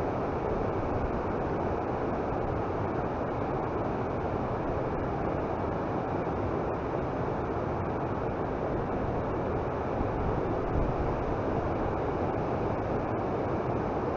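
Steady wind noise on the microphone: an even, unbroken hiss and rumble with no other distinct sound.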